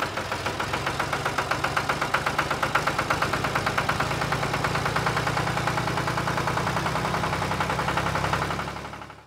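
Tractor engine chugging steadily with a fast, even knocking beat, fading out near the end.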